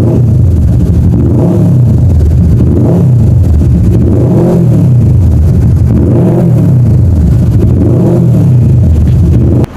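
Kawasaki Vulcan S 650 parallel-twin engine revved repeatedly through its aftermarket exhaust, about five throttle blips, each rising and falling in pitch, before cutting off just before the end.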